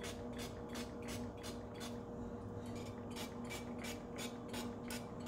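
Rapid repeated spritzes of a hand-pump oil spray bottle misting the plates of an electric contact grill, about four to five hissing pumps a second with a short pause midway, over a faint steady hum.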